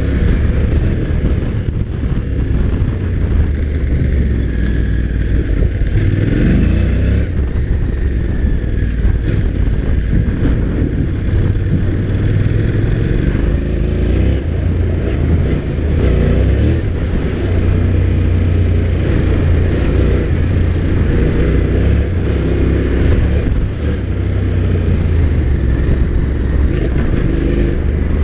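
Honda NC750X's parallel-twin engine running hard under way on a sand and gravel track, its pitch rising a few times as the throttle is opened, over heavy wind noise.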